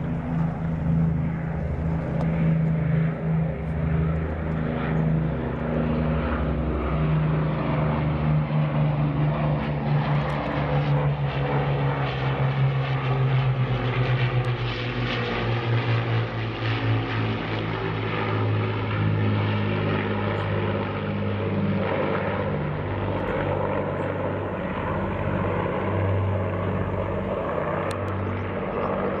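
Propeller aircraft's piston engines running steadily; their pitch drops a little about halfway through and then holds.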